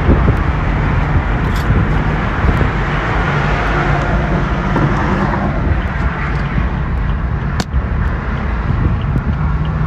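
Steady road and wind noise from a BMW 4 Series convertible driving at speed on a highway with the top down, with a single sharp click about seven and a half seconds in.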